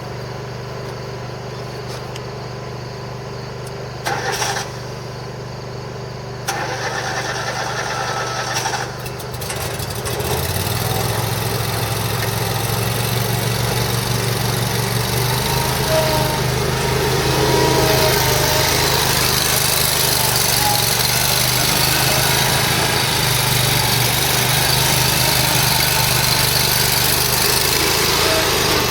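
Exmark Lazer Z commercial zero-turn mower engine being started: two short bursts of cranking, the engine catching about ten seconds in and then running steadily. It gets louder around sixteen seconds in and again a couple of seconds later.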